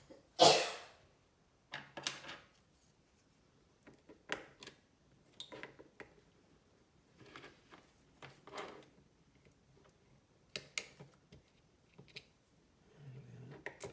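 Scattered small clicks and scrapes of repair tools on an iPhone 13 Pro Max's internals while the battery is being disconnected, with a louder scrape about half a second in.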